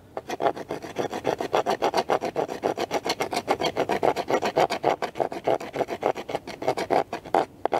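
A knife blade rapidly scraping resinous fatwood into fine tinder, about six quick strokes a second, stopping shortly before the end. The edge is used as a scraper, which is hard on the D2 steel blade of the Manly Blaze.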